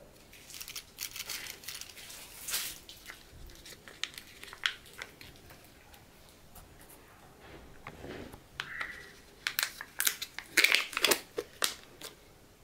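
Crinkling and crackling of Kinder Joy plastic packaging being handled and its peel-off lid torn back from the egg half, in scattered crackles early on and a louder, denser run of crackles and tearing near the end.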